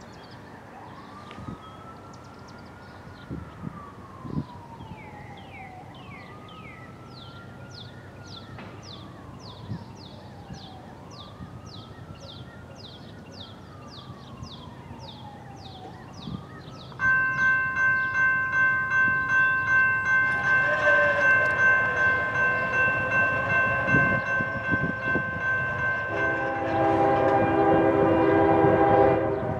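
A siren wails, rising and falling three times, under high chirps repeating about twice a second. About 17 seconds in, the horn of an approaching Norfolk Southern GE ES40DC locomotive starts up, loud, and holds a multi-note chord almost to the end, with lower notes joining a few seconds before it stops.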